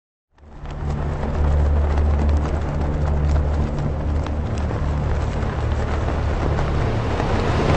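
Dark sound-design drone from a horror film's score: a steady low hum with a crackling noise layer over it, starting suddenly about half a second in.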